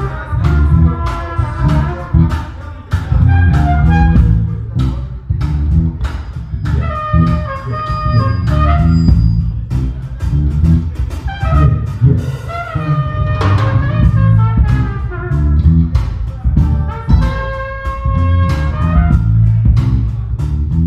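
A small live band playing a jazzy groove: electric bass and drum kit keeping a steady beat, with trumpet and keyboard playing held melody notes over them.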